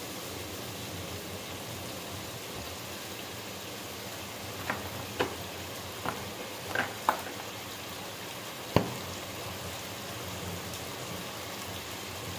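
Potatoes and onions frying in oil in a pot: a steady sizzle. A handful of short, sharp clicks and knocks come between about five and nine seconds in, the last the loudest.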